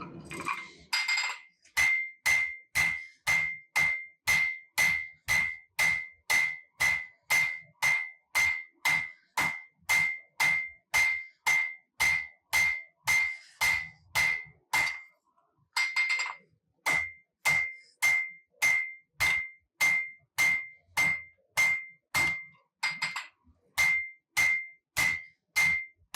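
Hammer blows on a hot Damascus steel billet on an anvil, drawing the steel out: a steady rhythm of about two and a half strikes a second, each with a ringing ping. The hammering stops for about a second midway, then resumes at the same pace.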